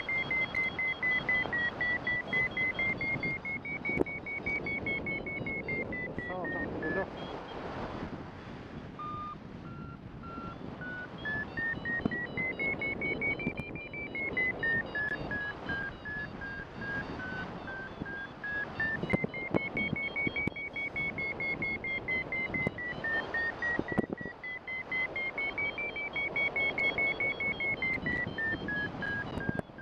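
Paragliding variometer beeping rapidly, its pitch stepping up and down with the climb rate: high, fast beeps for strong lift while being drawn up in cloud suck, dropping lower for a while about nine seconds in before climbing back up. Wind hisses on the microphone underneath.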